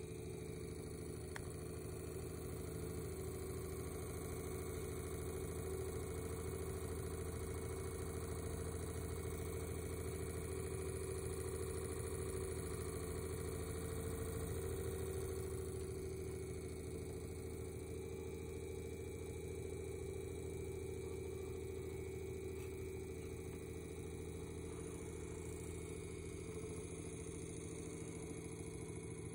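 Edison Model 1893 "Window Back" iron-clad DC battery fan running: a steady motor hum with a few constant tones, a little louder in the middle.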